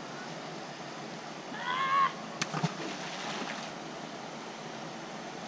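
Steady outdoor background hiss on a riverbank, with a short high-pitched squeal about two seconds in and two sharp clicks just after it.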